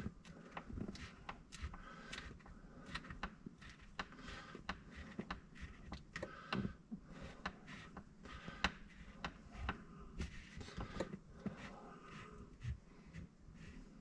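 Soft-top fabric being handled over the header bows: faint, irregular rustling with small clicks and taps as the material is pulled up and pressed onto the glued edge.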